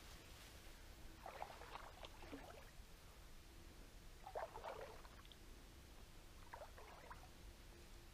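Faint footsteps through tall grass on wet, boggy riverbank ground: three short bursts of rustling and squelching, a couple of seconds apart.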